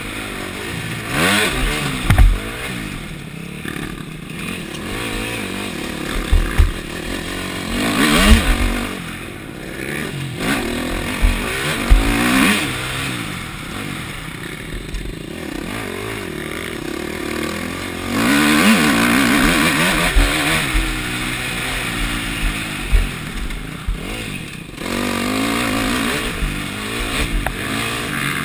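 KTM four-stroke motocross bike engine revving up and falling back again and again as it is ridden hard over a dirt track, heard through a helmet camera with a steady rush of wind. Short thuds from the suspension bottoming over bumps and landings come several times.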